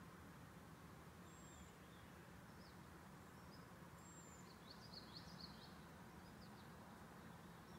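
Near silence: faint steady outdoor background noise with distant small birds chirping, a few short high chirps and a quick run of chirps about five seconds in.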